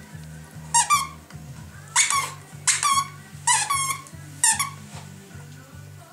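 Squeaker inside a plush Santa dog toy squeaking as a West Highland White Terrier bites and chews it. About seven short, high squeaks come over roughly four seconds, several in quick pairs, then stop.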